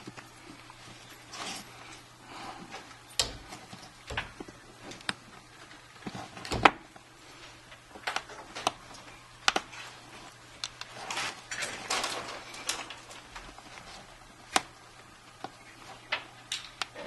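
iPhone 5 front screen assembly being pressed into its frame by hand: scattered small clicks and snaps as its clips seat, with rubbing and handling noise between them. The loudest click comes about six and a half seconds in.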